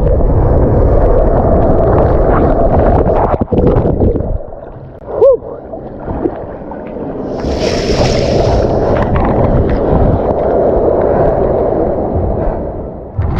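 Rushing water on the slide surface while riding down an enclosed water slide tube, a loud, steady noise. About five seconds in comes one short rising-and-falling squeak, and around eight seconds a brief burst of hissing spray.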